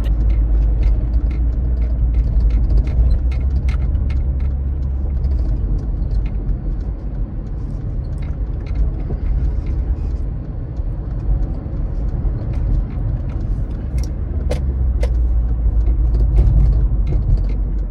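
Car interior road noise while driving: a steady low rumble from the engine and tyres, with a few faint clicks.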